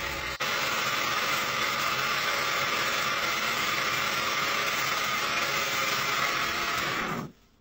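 Lathe turning a wooden blank, the cutting tool shearing off shavings with a steady hissing cutting noise over the machine's running. It cuts off suddenly near the end.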